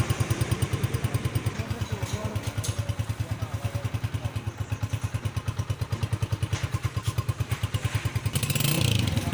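Honda CG125's air-cooled single-cylinder four-stroke engine idling with an even, pulsing exhaust beat of about eight to nine a second, growing louder near the end.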